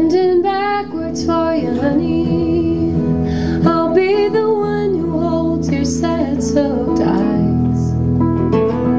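Live unplugged band playing a song: strummed guitar and bass under a sung melody held in long, wavering notes.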